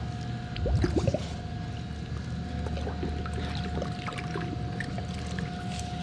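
Pool water splashing and trickling as the water-filled end of a vacuum hose is handled at the pool's edge, with one louder splash about a second in. A steady hum runs underneath.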